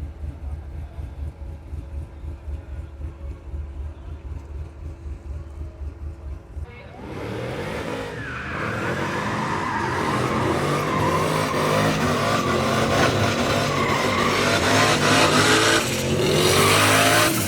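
Drag race car engine idling with a pulsing, uneven lope, then about seven seconds in it revs up hard and runs loud at high revs, growing louder toward the end.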